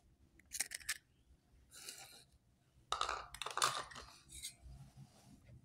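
A hen's egg being cracked: a few quick taps on the rim of a mixing bowl about half a second in, then quieter shell and bowl-handling noises as the egg goes in on top of the sugar.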